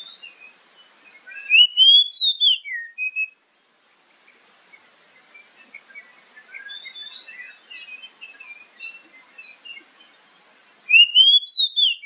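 Oriental magpie-robin singing: a loud whistled phrase of rising and falling notes about a second and a half in, quieter varied warbling through the middle, and the loud whistled phrase again near the end.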